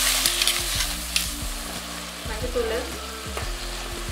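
Chopped tomatoes and shallots sizzling in hot oil in a pan while a steel ladle stirs them, scraping against the pan now and then.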